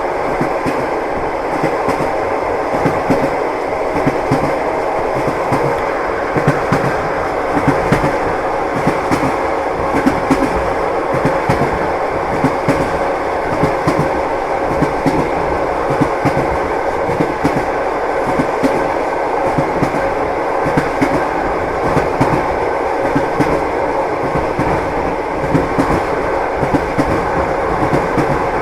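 Long-distance passenger train heard from inside a compartment carriage: a steady rolling rumble with the wheels knocking over the rail joints throughout.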